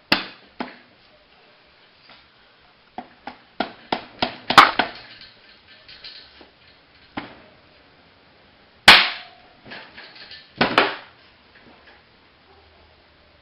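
Sharp knocks on the right side case cover of a Honda ATC 110 engine as it is worked loose from the crankcase: a quick run of about eight taps, then a few heavier single blows.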